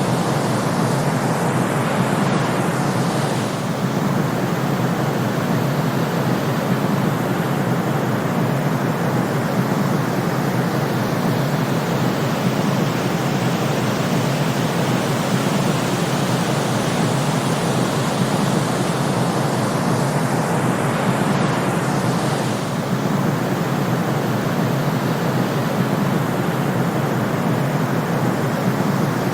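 Steady white-noise track of even hiss and rush, heaviest in the low-middle range and without deep bass, with a slight dip in level twice, about 19 seconds apart.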